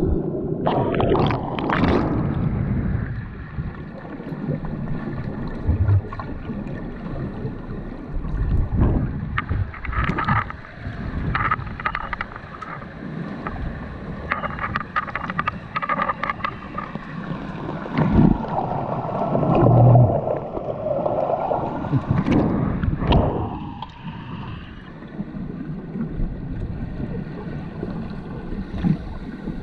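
Muffled underwater sound in a swimming pool: irregular bubbling and gurgling with scattered knocks as finned underwater-rugby players struggle for the ball and a scuba diver breathes out bubbles. Louder surges come and go, with faint steady tones underneath.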